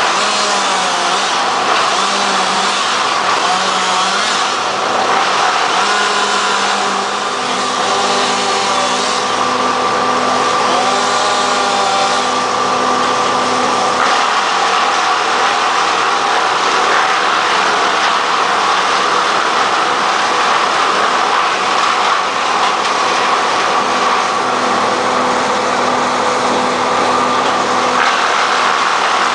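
Engines of tree-removal machinery running steadily throughout, with the engine pitch sliding up and down several times in the first half.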